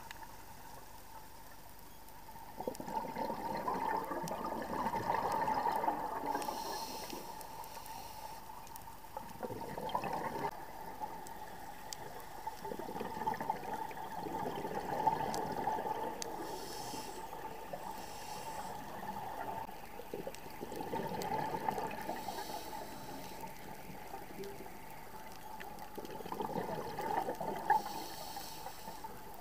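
Scuba diver breathing through a regulator underwater: long bubbling exhalations every several seconds, with short high hissing inhalations between them. A faint steady tone runs underneath.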